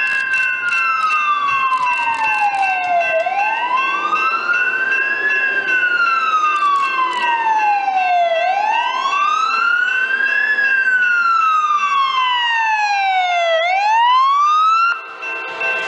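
Emergency vehicle siren in a slow wail, rising quickly and falling slowly about every five seconds, with a steady higher tone alongside. It cuts off suddenly near the end.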